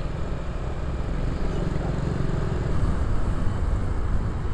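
Yamaha NVX V2 155 cc scooter being ridden: the engine runs steadily under wind noise on the helmet-mounted microphone.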